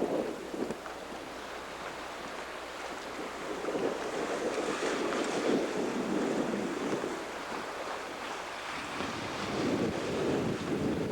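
Sea water rushing along the hull of a sailboat under way, with wind buffeting the microphone, swelling and easing every few seconds.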